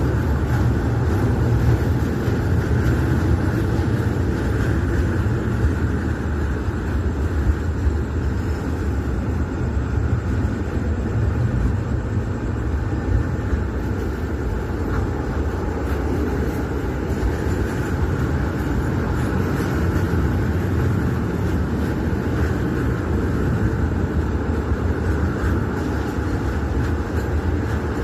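Freight train hauled by an Alsthom diesel-electric locomotive running, a steady rumble that holds unchanged throughout.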